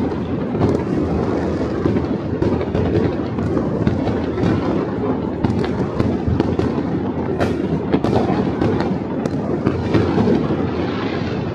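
Many fireworks and firecrackers going off across a city at once: a steady din of overlapping booms, with sharp cracks coming several times a second.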